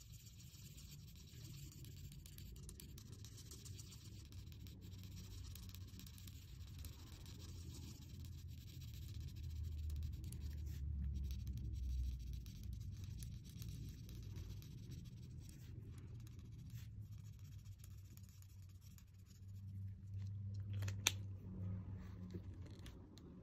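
Felt-tip art marker rubbing across paper in continuous colouring strokes, a soft scratchy sound over a low rumble. A single sharp click comes near the end.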